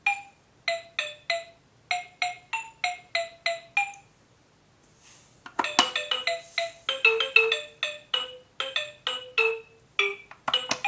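A tinkling electronic melody of short, xylophone-like notes. A phrase of about three notes a second pauses briefly around the middle, then a quicker run of notes carries on.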